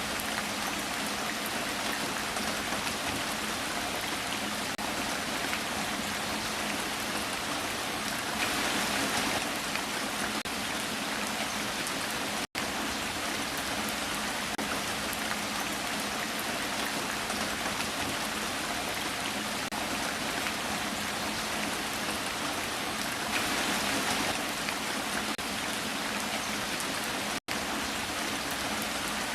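Heavy rain falling steadily, a dense even hiss of drops on surfaces. The sound cuts out for an instant twice, about halfway through and near the end.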